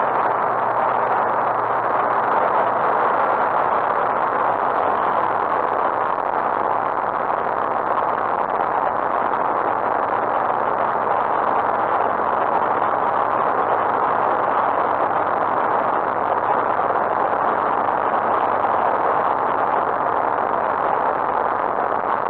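Steady drone of a Lightwing GR912 light aircraft's engine and propeller mixed with rushing airflow, heard from inside the cockpit in flight.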